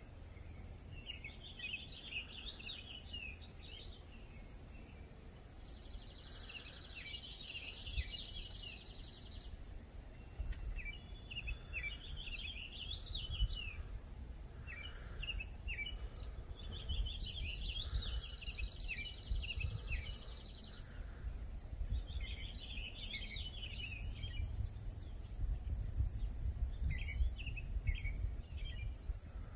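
Outdoor ambience of songbirds chirping and singing in short phrases, with two long, even trills of about three seconds each, over a low steady rumble and a thin high steady tone.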